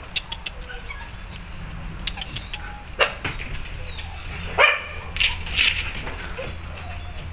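Puppies playing and giving several short barks and yips, the loudest about three seconds and about four and a half seconds in, with a few more soon after.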